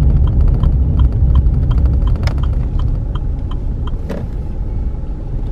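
A car heard from inside the cabin, its engine and tyre rumble easing off as it slows to park, with a steady light ticking about four times a second and a couple of knocks about two and four seconds in.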